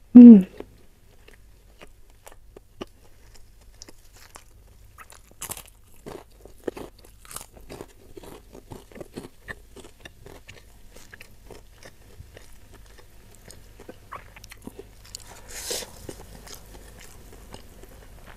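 Close-miked eating: a string of small crunches and wet mouth clicks as krupuk crackers and rice with spicy beef are chewed, with a louder crunch about 15 seconds in. A short vocal 'mm' sound comes at the very start.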